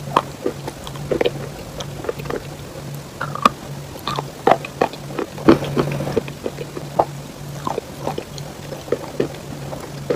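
Close-miked chewing of wet clay and chalk paste: sticky, wet mouth clicks and crunches, irregular, several a second.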